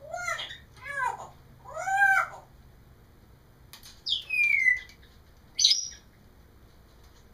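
African grey parrot calling: three whistled calls that rise and fall in pitch, then a long downward-sliding whistle about four seconds in, and a short sharp squawk soon after.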